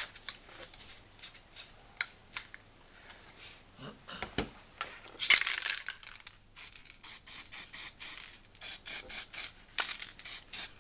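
A spray bottle spritzing: one longer hiss about five seconds in, then a quick run of short spritzes, about four a second.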